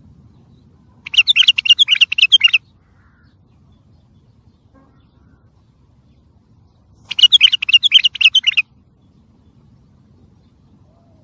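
Wild white-eared bulbul singing: two bursts of rapid notes, each about a second and a half long, some six seconds apart.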